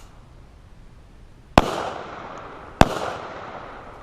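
Two gunshots about a second and a quarter apart, each with a long echo trailing off.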